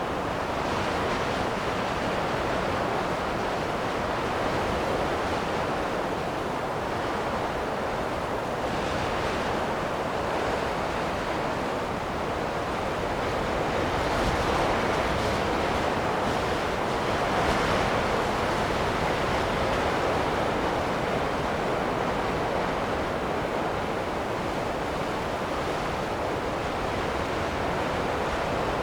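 Wind blowing in gusts: a steady rushing noise that swells several times, most strongly about halfway through.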